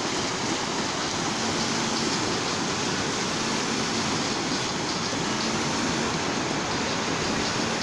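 Steady rushing noise of floodwater pouring along, an even hiss-like rush at a constant level.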